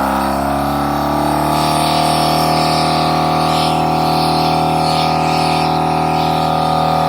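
Portable air compressor running steadily after being switched on, a loud, even motor-and-pump drone with a constant pitch.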